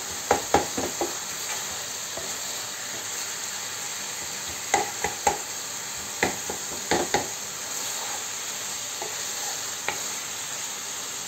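Diced chicken frying in a pan with a steady sizzle. A spatula stirs and knocks against the pan in quick clusters: near the start, twice in the middle and once near the end.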